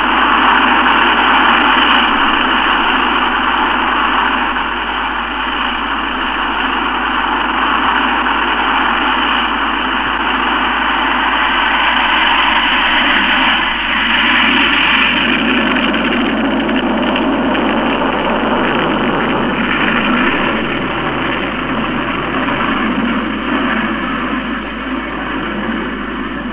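The BAC 221's single Rolls-Royce Avon turbojet at take-off power, a loud steady jet noise through the take-off run and climb-out, easing slightly near the end as the aircraft climbs away.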